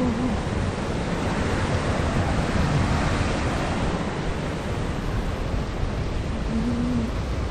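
Steady hiss of rain mixed with traffic on the wet road, swelling around the middle as if a vehicle passes.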